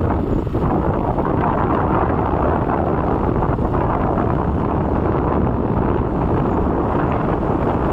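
Wind rushing over the microphone of a moving motorcycle: a steady, loud rumbling rush with no clear engine note.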